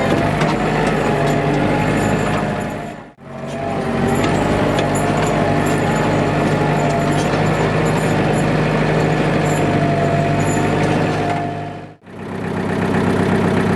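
Engine-driven machinery running steadily, with a low hum and a wavering higher whine. The sound drops away and comes straight back twice, about three seconds in and near the end.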